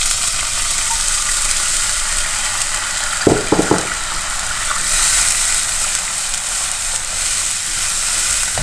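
Beef stock hitting the hot oil and garlic in a casserole pot and sizzling steadily, while a wooden spoon stirs and scrapes the pan bottom to deglaze it, with a couple of knocks a little over three seconds in.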